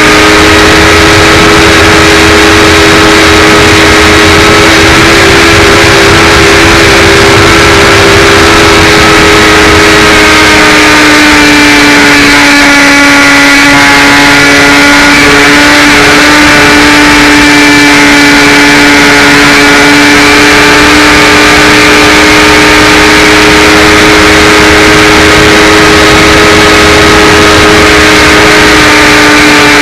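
Electric motor and propeller of a HawkSky RC glider running at steady throttle, a loud, even hum over rushing air. The pitch dips slightly midway and then holds.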